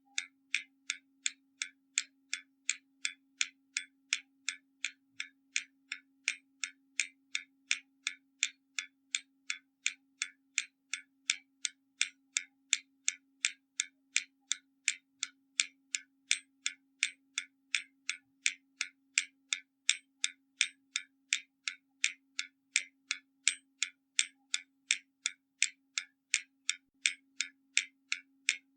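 Hermle mechanical skeleton clock ticking: its escapement gives crisp, evenly spaced ticks, about two and a half a second.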